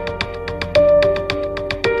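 Background music: sustained melodic notes over a steady, quick beat.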